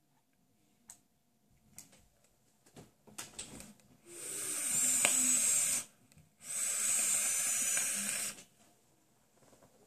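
Vape hits on a box mod with a dripping atomizer: a hiss from the coil and the air drawn through it, two draws of about two seconds each, starting about four seconds in, with a thin wavering whistle on top. A few faint clicks come before them.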